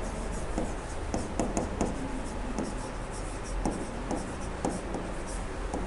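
A stylus writing on an interactive smart-board screen: a string of light, irregular taps and short scratches as words are handwritten.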